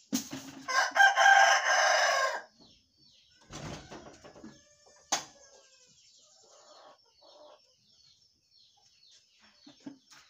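A rooster crows once, a long call in the first couple of seconds. It is followed by a brief swishing noise and a sharp click, with small birds chirping faintly.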